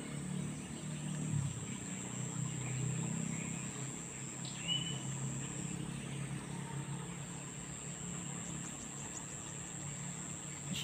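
Outdoor riverside ambience: a steady low rumble under a thin, steady high-pitched hum, with a single short bird chirp about five seconds in.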